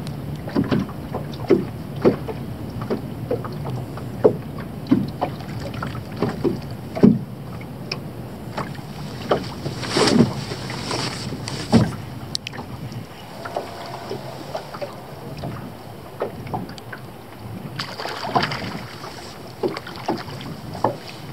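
Choppy, wind-driven water slapping against a small boat's hull in irregular knocks, over a steady rush of wind.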